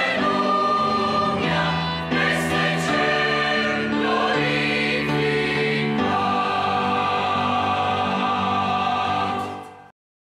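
Mixed choir of men's and women's voices singing the closing phrases of a hymn, ending on one long held chord that cuts off abruptly near the end.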